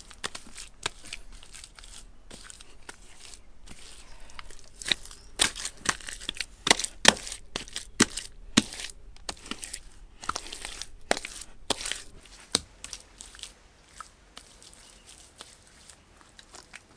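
Irregular sharp cracks, snaps and crunches of dry material being handled or broken, thickest in the middle.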